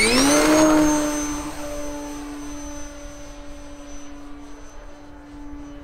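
RC model airplane's motor throttling up, its whine rising in pitch and then holding one steady high-pitched note, loudest in the first second and slowly fading afterwards.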